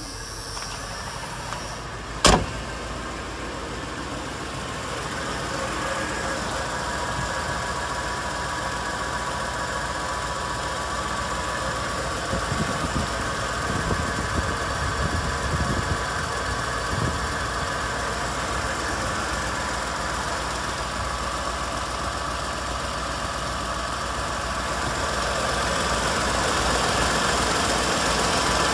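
A single sharp slam about two seconds in, then a 1996 Ford F350's gasoline V8 idling steadily.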